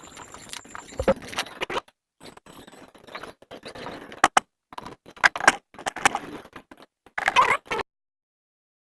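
Handling noise of an unboxing: scattered clicks, taps and short rustles of packaging being handled, with a longer rustling scrape near the end before the sound cuts off suddenly.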